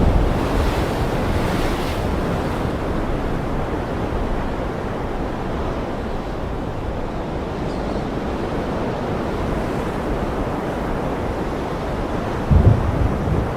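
Steady rush of ocean surf. A thunder rumble eases off over the first couple of seconds, and a new low, sudden clap of thunder breaks in about a second before the end.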